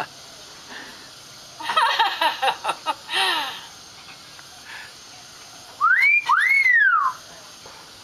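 Hill myna mimicking human laughter: a quick run of short 'ha-ha-ha' notes about two seconds in, then two loud whistles, each rising and then falling in pitch, about six seconds in.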